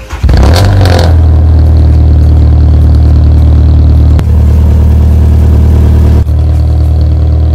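Alfa Romeo 147 engine on a cold start: a brief crank that catches within the first second and rises, then settles into a steady idle.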